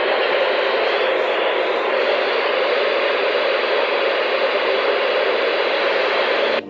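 Loud, steady hiss of radio static from a receiver, cutting off suddenly near the end.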